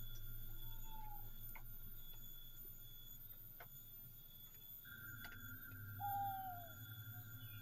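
Steady high-pitched electronic whine over a low hum, with a few faint clicks and two short chirps that fall in pitch, about half a second and six seconds in; the second chirp is the loudest.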